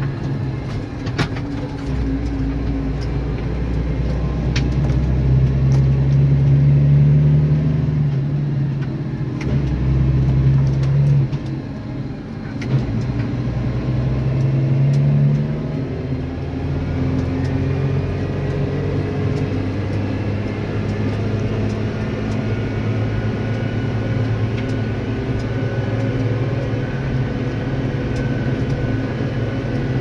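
Tractor engine running, heard from inside the cab. Its drone swells and shifts in pitch a few times in the first half, then holds steady, with scattered rattles and clicks from the cab.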